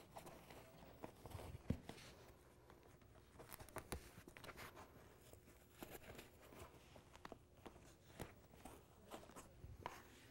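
Faint rustling of a heavy fabric collector bag and scattered light clicks as the fabric is twisted around its metal tube frame to line up bolt holes.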